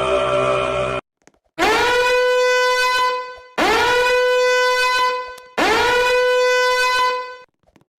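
A horn-like blast sounded three times, each one sliding up into a steady tone, held about two seconds, then fading. Before it, a different sustained sound effect cuts off suddenly about a second in.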